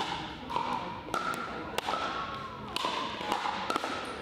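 Pickleball paddles striking a hard plastic ball during a rally: a string of sharp pops, several over a few seconds, echoing in a large gym.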